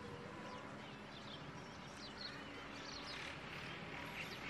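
Several birds chirping: short calls that slide up and down in pitch, busier near the end, over faint steady background noise with a low hum.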